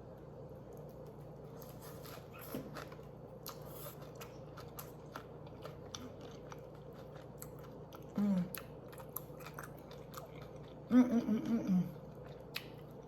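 Close-miked chewing and biting of food, many small wet clicks in quick succession. A brief voice sound comes about eight seconds in, and a longer one about eleven seconds in.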